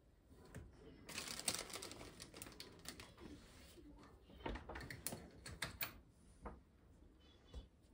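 Plastic zip-lock food bag crinkling and rustling as grated cheese is pulled out by hand and sprinkled. The dense crinkling comes about a second in, followed by scattered light crackles and clicks.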